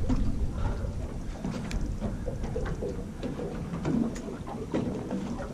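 Steady low rumble of wind and water around an aluminum fishing boat, with a few faint clicks.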